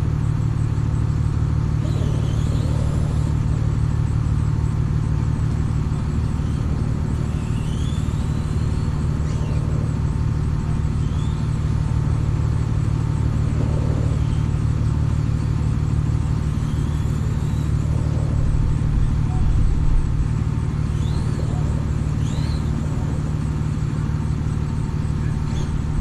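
Bucket truck's engine running steadily, a constant low drone. A few bird chirps come and go above it.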